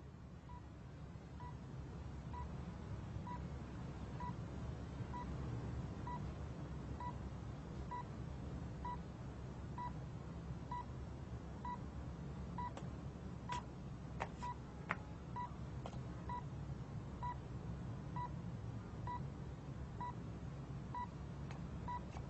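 Hospital heart monitor beeping steadily, a short high beep a little more often than once a second, over a low steady hum. A few faint clicks come about two-thirds of the way in.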